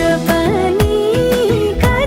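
Background music: a pop song with an ornamented, wavering melody over a drum beat with deep, falling bass-drum hits.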